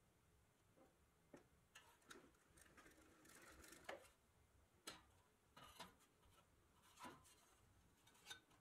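Faint, scattered light clicks and taps of a pressed-steel toy car's body and chassis being handled, turned over and set against a wooden bench.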